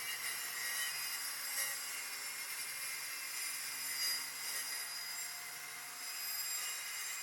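Wood being sawn: a steady rasping with no clearly separate strokes.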